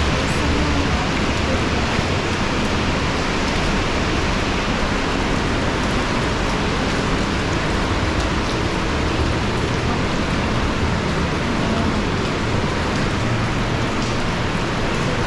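Steady rushing of falling water, an even, unbroken roar that holds level throughout.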